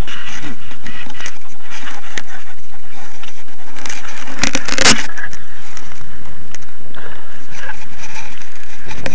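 Loud, distorted rush of wind and electric ducted fan noise picked up by a small camera riding on a Sapac Typhoon 70mm EDF model jet in low flight. There is a loud burst of noise about halfway through.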